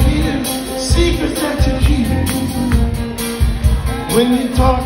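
A live rock band playing through a concert PA, heard loud from the audience: steady drums and bass under electric guitars.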